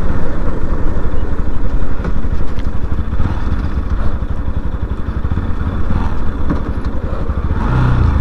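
Bajaj Pulsar NS200's single-cylinder engine running under way, a dense, pulsing low drone. Near the end its pitch rises as the bike speeds up.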